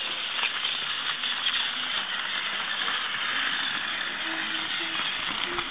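Battery-powered toy train engine running steadily along plastic track, its small motor and wheels whirring.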